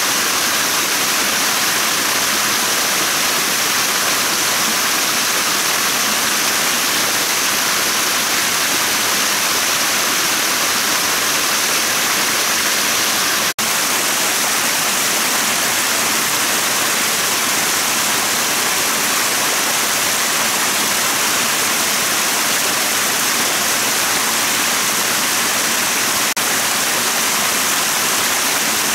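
Steady rushing of a forest stream tumbling over small rocky cascades, with a momentary break in the sound about halfway through.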